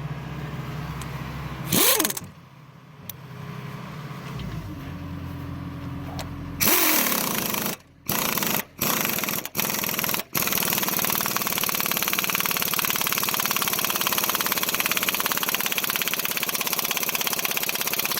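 Pneumatic impact wrench hammering on a bolt: a short burst about two seconds in, then several quick bursts with brief stops, then running without a break for the last eight seconds.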